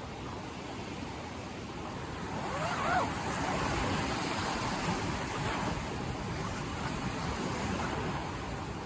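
A steady rushing noise, like wind or surf, swelling a little louder about three seconds in.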